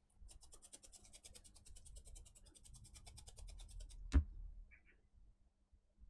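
Faint, rapid scrubbing on a small circuit board, about ten strokes a second, cleaning solder flux off with alcohol, ending with a single sharp click about four seconds in.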